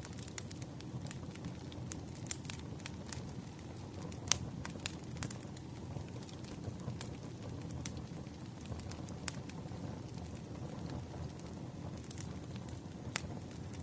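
Campfire crackling: a steady low rush of burning wood with scattered sharp pops and snaps, the loudest about four seconds in.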